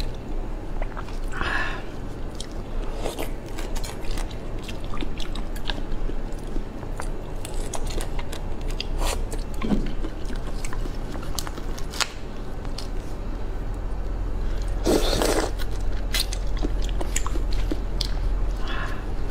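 Close-miked chewing and crunching of soy-sauce-marinated shrimp heads, with many small crackles and clicks from the shells and one louder burst of noise about fifteen seconds in.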